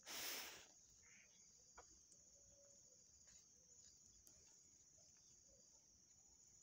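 Near silence with a steady high insect chirring, broken right at the start by one brief, loud rush of noise and followed by a few faint ticks.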